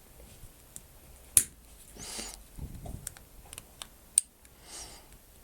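Small screwdriver prying at the plastic casing of a phone charger: scattered light clicks and short scrapes, with two sharp clicks about a second and a half and four seconds in.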